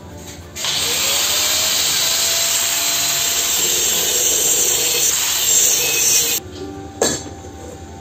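Angle grinder with a cut-off disc spinning up with a rising whine, then cutting through thick-walled steel hollow tube with a steady, harsh grinding noise. It stops suddenly about six seconds in, and a single sharp knock follows about a second later.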